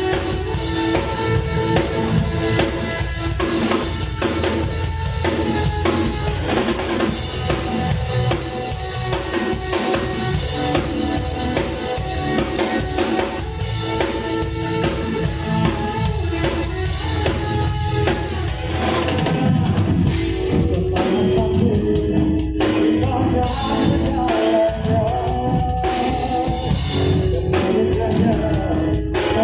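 A worship band with drum kit, guitar and singing plays a steady pop-rock song. From about two-thirds of the way in, the drumming turns busier, with sharper accented hits.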